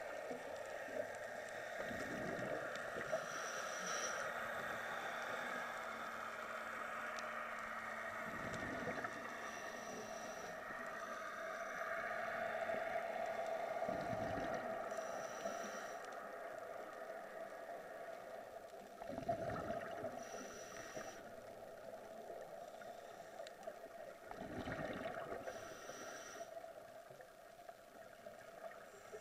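Scuba diver breathing through a regulator underwater: a steady hiss, with a burst of exhaled bubbles gurgling about every five to six seconds.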